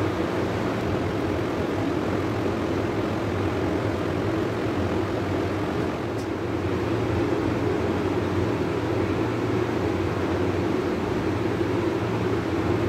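A steady mechanical drone with a low hum underneath, unchanging throughout.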